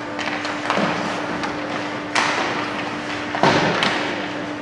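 Ice hockey game play: about four sharp knocks and bangs of sticks, puck and boards, the loudest about three and a half seconds in, over a steady hum.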